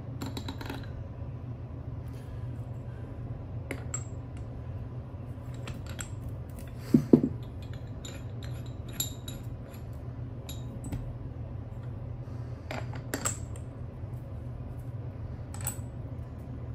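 Metal parts of a uniball press tool being handled and fitted onto a steel upper control arm: scattered light metallic clinks and taps, with two louder thuds about seven seconds in.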